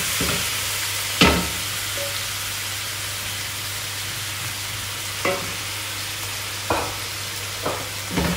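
Raw minced meat sizzling in hot oil with onions in a stainless steel pan, with a spatula stirring and knocking against the pan every second or two; the loudest knock comes about a second in.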